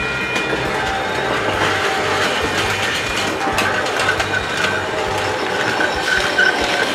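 Toy freight train running along its track with a steady clatter, setting off just after refuelling.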